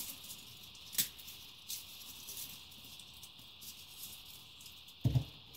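Faint crackling patter of hands sprinkling and spreading toppings over a raw pizza in a cast-iron skillet, with a sharp click about a second in and a dull thump near the end.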